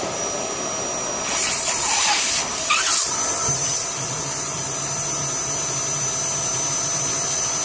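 Vacuum cleaner running, sucking on the drain hose of a split system air conditioner to clear a blockage. The suction hisses in two surges in the first few seconds, then settles into a steady lower drone.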